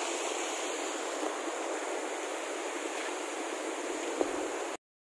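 Mountain stream rushing over rocks and small rapids: a steady, even rush of water that cuts off suddenly near the end.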